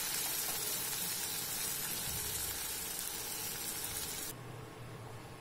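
Onion, tomato and spice masala sizzling in a clay pot, the sizzle slowly dying away with the stove just turned off; it cuts off suddenly about four seconds in.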